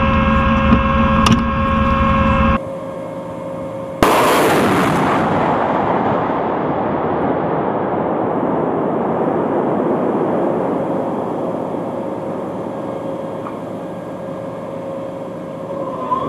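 Inside the cab of an M270 Multiple Launch Rocket System, a steady vehicle hum with a few clicks, cut off suddenly. About four seconds in, a sudden loud blast as a rocket launches from the launcher, then the rocket motor's rushing noise, fading slowly over the next ten seconds.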